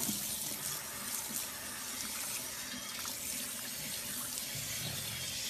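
Water running steadily from a handheld sink sprayer as it rinses a wet pug's coat: an even hiss of spraying water.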